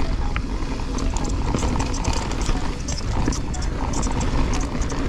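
Canyon Strive enduro mountain bike ridden along a dirt trail: tyres running over dirt and stones with the chain and frame clattering in quick irregular knocks, over a steady low wind rumble on the microphone.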